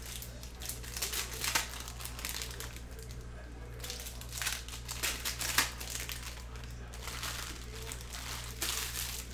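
Foil trading-card pack wrappers crinkling as packs are torn open and the cards handled, in irregular bursts, with the sharpest crackle about five and a half seconds in, over a steady low hum.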